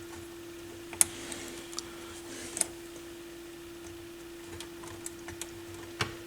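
Scattered small clicks and taps of a screwdriver and fingers working at stubborn plastic wire clips inside a stereo receiver's chassis, over a faint steady hum.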